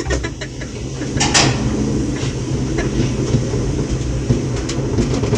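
Gateway Arch tram capsule climbing: a steady low hum under rattling and scattered clanks, getting louder over the first second, with a sharp clank about a second in.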